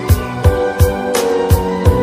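Background music with a steady beat of drum hits, about three a second, over sustained held tones.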